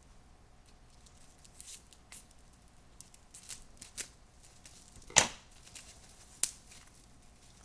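Packaging being opened by hand: light rustles and crinkles, with a sharp snap about five seconds in and a smaller click a little over a second later.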